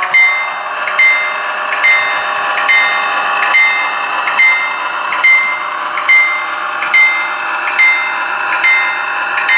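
HO scale BNSF SD9 model locomotive's onboard sound ringing its bell, a clear strike about once a second, over the steady running sound of its diesel engine as it moves through the yard.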